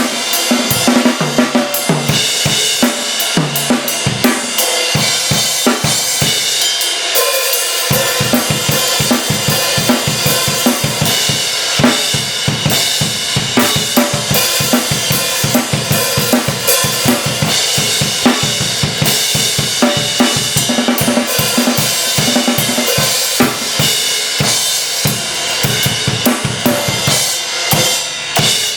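Drum kit played as a groove, with kick and snare strokes under Zildjian A Custom cymbals (hi-hats, crashes and ride) keeping up a steady bright wash.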